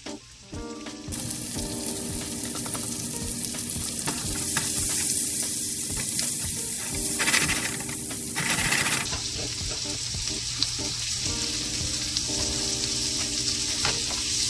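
Asparagus sautéing in butter in a frying pan: a steady sizzle that starts about a second in and swells louder for a moment about halfway through.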